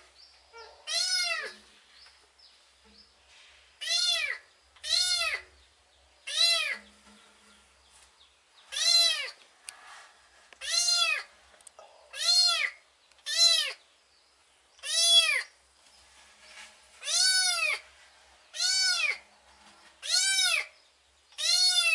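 Kitten meowing over and over, about a dozen short, high calls that each rise and fall in pitch, one every second or two with a longer pause partway through. They are the cries of a kitten stranded in water that it fell into.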